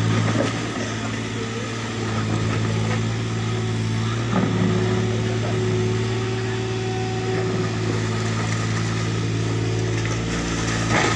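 Tata Hitachi mini excavator's diesel engine running steadily under hydraulic load as the boom and bucket dig and swing, with brief knocks about four and a half seconds in and again near the end.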